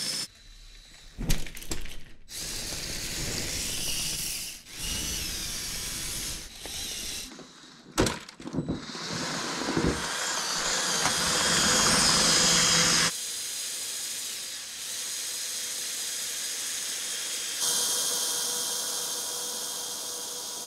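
Electric motors of a radio-controlled Lego Technic tank whining as they drive its plastic tracks, the pitch wavering up and down with the throttle, with a few sharp knocks from the tracks and bricks. The sound changes abruptly several times.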